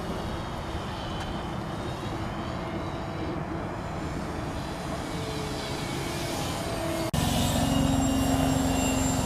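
Radio-controlled model airplane's propeller motor droning as the plane flies overhead, its pitch wavering as it manoeuvres. About seven seconds in it cuts abruptly to a louder, closer pass with a steady drone and a high whine.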